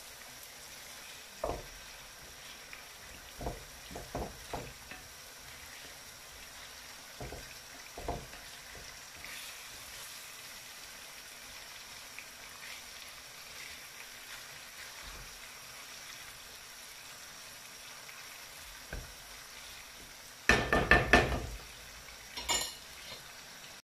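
Wooden spatula stirring chicken pieces in a terracotta casserole: occasional soft knocks and scrapes of wood on clay over a gentle, steady sizzle. A louder clatter of handling comes near the end.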